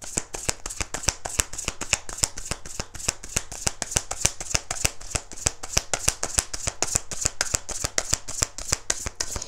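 A tarot deck shuffled overhand by hand: a steady run of quick card snaps and slaps, several a second.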